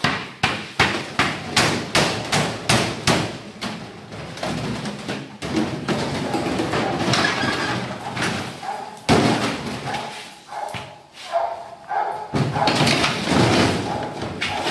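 A run of sharp thumps, two or three a second, for the first four seconds, then scuffling and clatter from empty plastic jugs and a plastic bin being struck and knocked about during Malinois bite-sleeve work.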